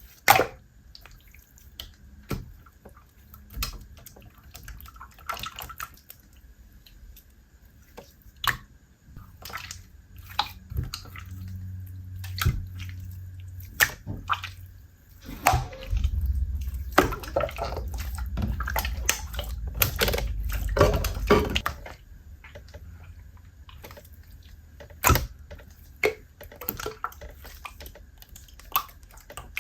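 Compound Kings clear water slime being squished and poked with fingers: a run of wet clicks, pops and squelches, thickening into a busier stretch of squishing in the middle.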